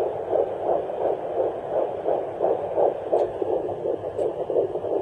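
Handheld fetal Doppler's speaker playing a fetal heartbeat at about 12 weeks: a fast, even run of whooshing "woof, woof, woof" pulses with a steady hiss beneath.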